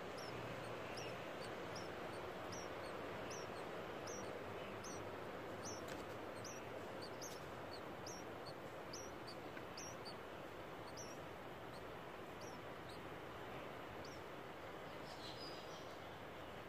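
Chinese bulbul nestlings begging with short, high cheeps, about one and a half a second, over a steady background hiss. The calls die away about two thirds of the way through as the chicks stop gaping.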